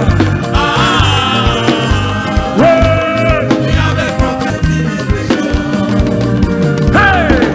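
Upbeat dance music with a steady drum and bass beat and a lead melody that slides up and down in pitch.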